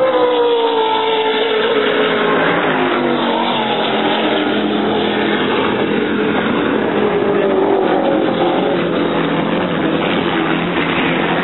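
Offshore racing powerboat engines at full speed as the boat passes, the engine note dropping in pitch over the first few seconds and then holding steady as the boat runs away. Underneath is a steady rush of wind and water noise.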